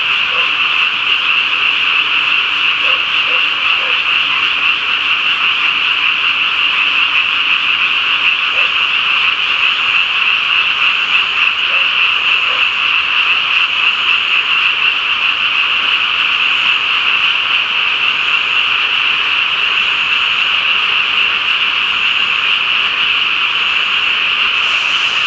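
A dense chorus of many frogs calling at once, loud and steady without a break.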